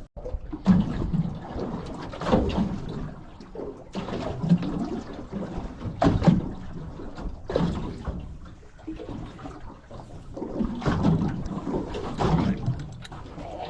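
Water slapping and sloshing against the hull of a drifting boat, in uneven surges every second or two.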